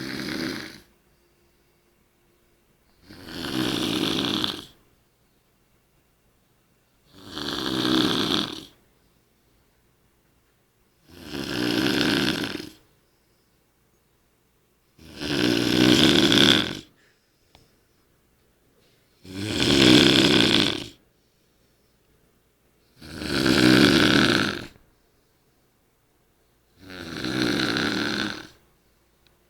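A man snoring loudly in deep sleep after heavy drinking, one long rasping snore about every four seconds, eight in all, with quiet breaths between.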